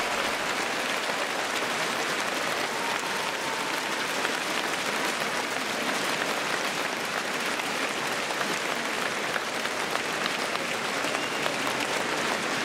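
Large stadium crowd applauding steadily, a dense continuous clapping.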